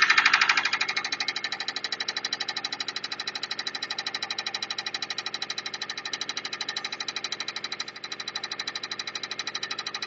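Subaru EJ20 flat-four engine running cold with a rapid, even knock, louder for the first second and then steady. The owner traces the knock to cylinder 4 and takes it as a forewarning that the engine may need a rebuild.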